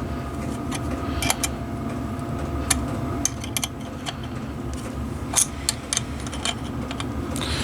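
Irregular light metallic clicks from a hand tap and tap wrench being turned into a drilled bolt hole in a motorcycle's aluminium primary case, over a steady low mechanical hum.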